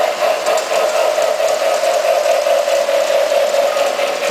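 Model electric trains running on the layout's track: a steady motor whine with a faint, regular clicking of wheels over the rail joints.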